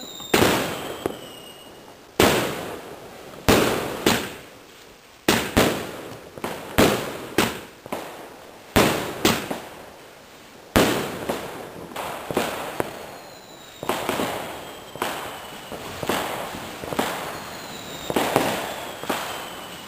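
Fireworks going off: a steady string of loud bangs from bursting aerial shells, about one a second, each trailing off in an echo. Now and then a thin falling whistle sounds between them.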